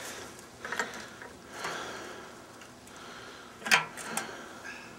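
A few sharp clicks and knocks from objects being handled, with a rustle between them; the loudest, a sharp click, comes about three-quarters of the way through.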